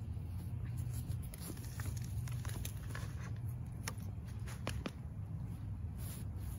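Compost sliding out of a tipped plastic bucket onto a flower bed, a run of crackles and patters from about a second and a half in, over a steady low rumble.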